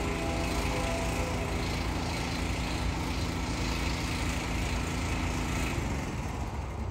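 A motor running steadily, a low continuous mechanical rumble with hiss. Faint steady tones sound underneath and stop about six seconds in.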